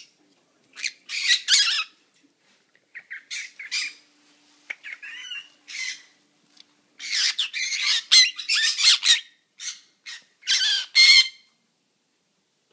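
Fiery-shouldered conure giving harsh, raspy squawks and chatter in five clusters with short pauses between, the longest run lasting about two seconds.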